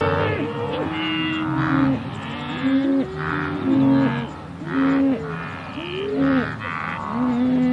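Several cattle mooing, their calls overlapping, about one a second; each call rises, holds and then falls in pitch.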